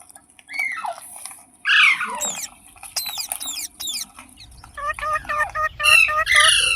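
Parrot calling: sharp falling squawks and chirps, the loudest about two seconds in, then a quick run of repeated chirping notes in the last two seconds.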